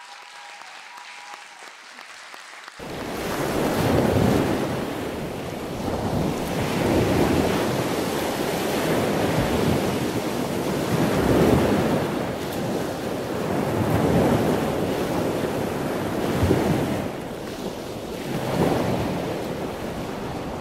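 Loud rushing noise like surf, swelling and easing every three seconds or so as if waves were breaking; it comes in suddenly about three seconds in, after a quieter stretch.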